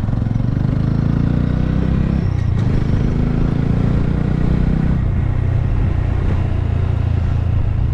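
Honda Grom's small single-cylinder engine running under way at steady revs, with its note shifting about two seconds in and again about five seconds in.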